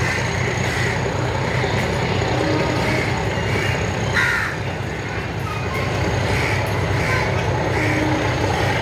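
Diesel locomotive engine running with a steady low drone as it slowly hauls a rake of coaches through the station, the coaches rolling along the track. A crow caws briefly about four seconds in.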